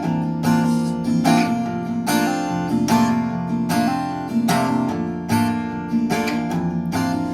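Acoustic guitar in open D A D G B D tuning with a capo at the third fret, strummed in a steady rhythm of ringing chords with no singing.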